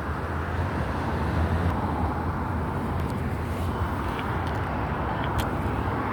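Steady street traffic rumble with wind noise, with a few faint short clicks in the second half.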